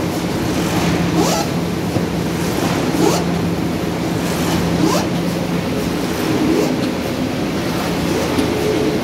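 Automatic flat-bed die-cutting machine for corrugated board running: a steady low hum under loud mechanical noise, with a rising swish that repeats about every two seconds in time with the machine's cycle.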